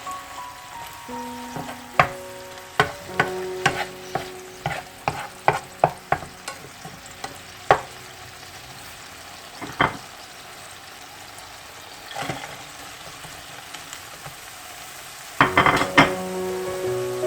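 Anchovies and shishito peppers being stir-fried in a pan: a steady sizzle under sharp clacks of a utensil against the pan, about two a second through the first half, then only a few. Near the end comes a short burst of clatter.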